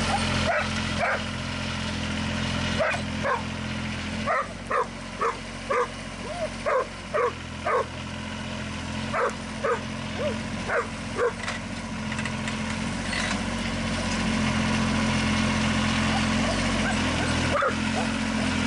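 A dog barking in a run of short, high yips, about two a second, over a compact tractor's engine idling steadily; the barking stops about eleven seconds in.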